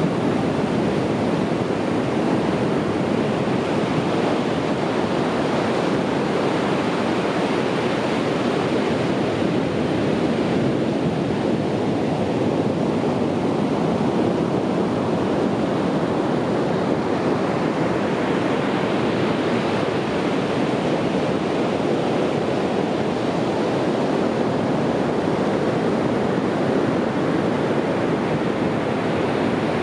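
Sea waves washing onto a beach in a continuous surf roar, easing slightly in the middle and swelling again past halfway.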